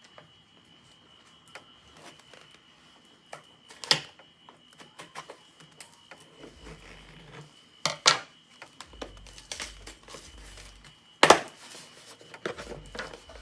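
Cardboard product packaging being handled and opened: scattered light clicks and taps, with three sharper knocks spread through, the middle one doubled.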